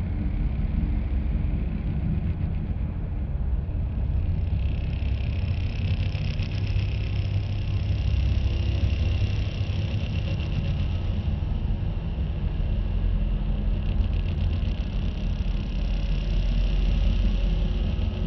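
Sci-fi UFO sound effect: a steady, deep rumbling hum. A higher tone layered on top swells in about four seconds in, fades away after about twelve seconds, and swells back near the end.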